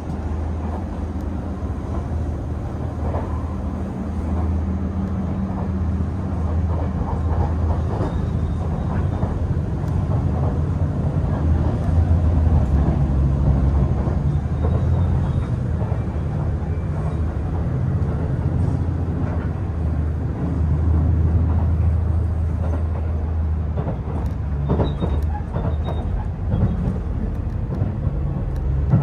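Steady low drone of an HC85 series diesel-hybrid express railcar, heard from inside the ordinary-class passenger car, with scattered light knocks.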